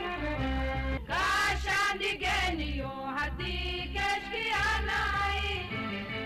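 Background music with a singing voice over a pulsing bass beat.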